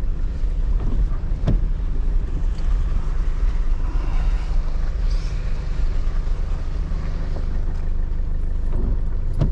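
Pickup truck engine running low and steady, heard from inside the cab as it creeps across a wet yard towing a heavily loaded trailer, with a single knock about one and a half seconds in.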